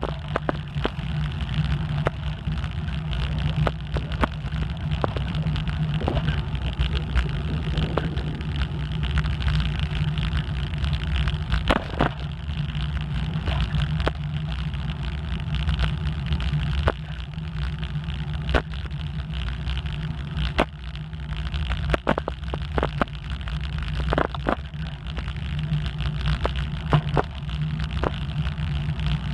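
Bicycle being ridden along an asphalt street: a steady low rumble of tyres on the road and wind on the microphone, with scattered sharp clicks and rattles.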